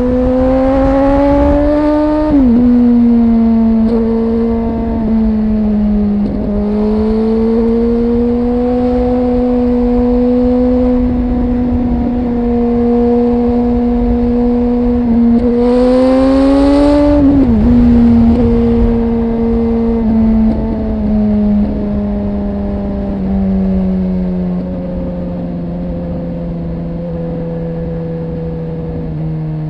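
Suzuki GSX-R 1000's inline-four engine heard from the rider's seat, pulling up in revs and dropping sharply about two seconds in as it shifts up, then holding a steady cruise. It pulls up again a little past halfway with a second sharp drop, then the revs sink slowly over the last third as the bike eases off.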